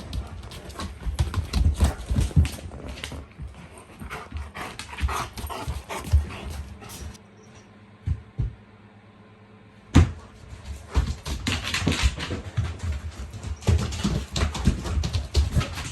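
Newfoundland dog playing roughly indoors: irregular scuffling and knocks on the floor, with dog vocal sounds. It goes quiet for a couple of seconds past the middle, then a sharp thump starts another burst of scuffling.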